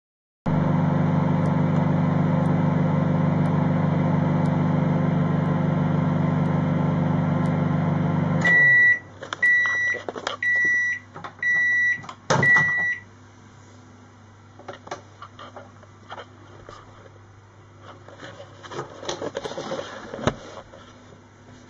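Microwave oven running with a steady hum as it finishes cooking, then stopping abruptly about eight seconds in; five short high beeps about a second apart signal the end of the cycle, with a sharp click near the last beep as the door is opened, followed by faint handling noises.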